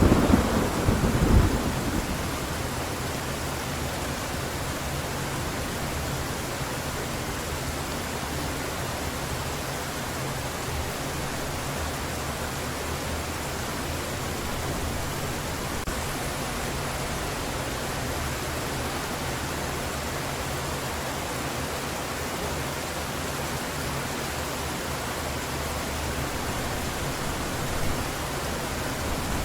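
Heavy rain falling steadily, with a loud thunderclap right at the start that rumbles on for about two seconds.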